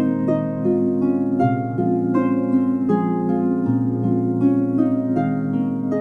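Lyre music: a quick, flowing run of plucked string notes over a low held bass note that shifts pitch twice.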